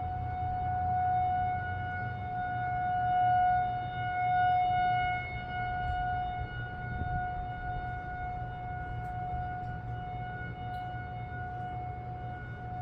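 Federal Signal 2001-230 electromechanical outdoor warning siren sounding the alert signal, a steady single-pitch tone. The level swells and fades as the rotating siren head turns.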